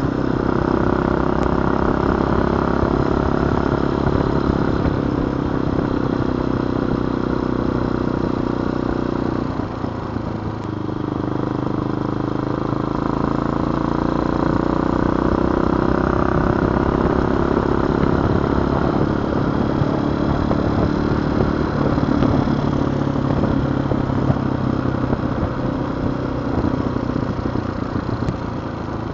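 TaoTao TBR7 dirt bike's small single-cylinder four-stroke engine running steadily while riding. About ten seconds in, the engine note drops and quietens briefly, then climbs again over the next few seconds.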